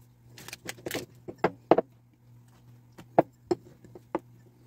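A string of about a dozen sharp clicks and knocks from hands handling fondant and its plastic packet on a wooden countertop, over a steady low hum.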